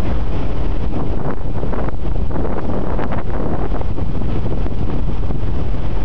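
Strong wind buffeting the microphone on a moving ship's deck: a loud, steady low rumble with a few short gusts.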